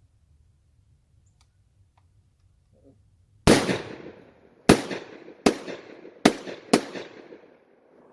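Five shots from a Tokarev Monster 101 12-gauge semi-automatic bullpup shotgun, about three and a half seconds in, each followed by a fading echo. The first gap is about a second and the later shots come faster. The cheap field loads cycle the action on every shot.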